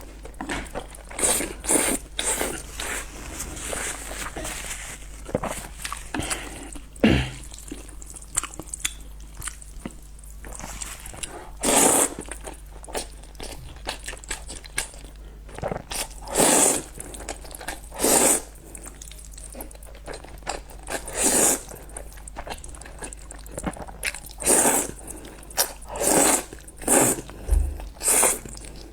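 Close-miked eating of spicy noodles: steady wet chewing clicks, broken every few seconds by louder half-second bites.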